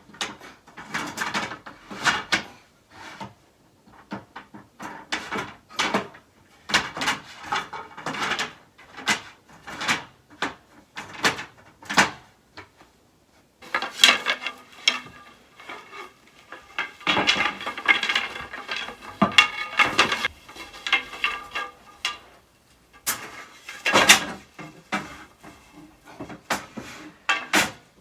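Wooden bed slats being handled and laid onto a bed frame: irregular knocks and clatters of wood on wood, in clusters with short pauses.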